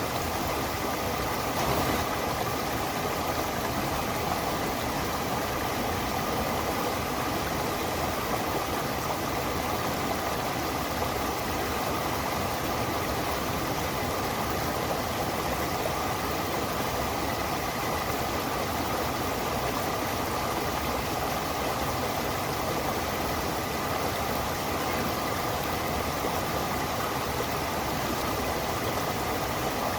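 Running water of a stream, a steady unbroken rushing.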